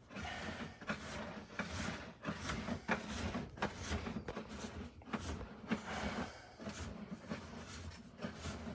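Irregular scraping, rattling and knocking of a sewer inspection camera's push cable being fed down a drain line, with sharp clicks every fraction of a second.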